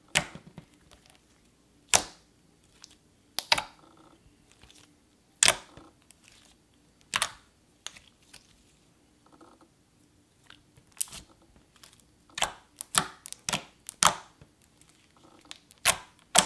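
Yellow cream cheese slime clicking as fingers press, pinch and stretch it, air pockets giving sharp irregular clicks every second or two, coming quicker near the end.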